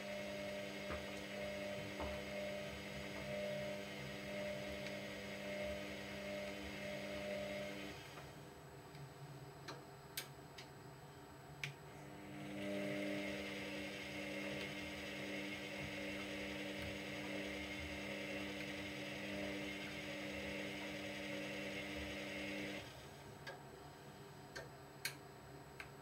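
Washer-dryer drum motor turning the laundry: a steady hum for about eight seconds, a pause of about four seconds with a few light clicks, then about ten more seconds of running before it stops again, followed by a few more clicks. This is the drum's tumble rhythm, running and pausing between turns.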